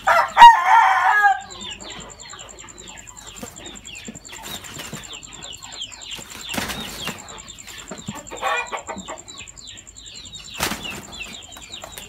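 Chickens sparring: wings flapping and striking, with a loud squawk in the first second and a shorter one about eight seconds in, over steady high chirping.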